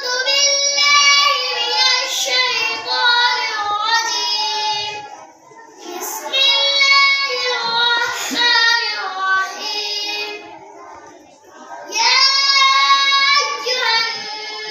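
Young boys reciting the Quran aloud in a melodic chant, in three long drawn-out phrases with short breaks for breath about five and eleven seconds in.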